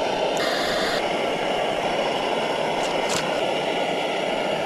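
Camp stove burner running with a steady, even hiss.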